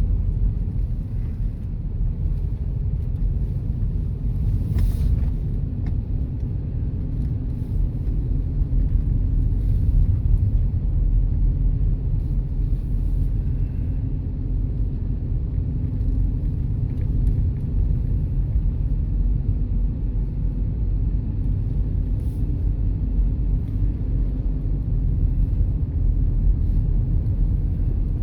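Car driving along, a steady low rumble of road and engine noise.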